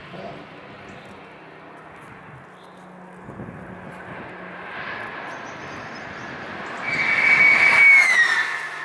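Distant car engines droning around the circuit, then a vehicle passing close by at speed from about seven seconds in, the loudest part, its high whine holding and then dropping in pitch as it goes past.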